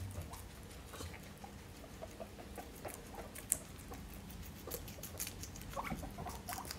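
A guinea pig crunching fresh lettuce: an irregular run of soft, crisp clicks, faint throughout.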